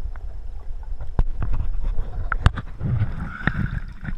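Water heard through a camera held underwater: a steady, muffled low rumble with several sharp clicks. Near the end the camera comes up, with water splashing as it breaks the surface.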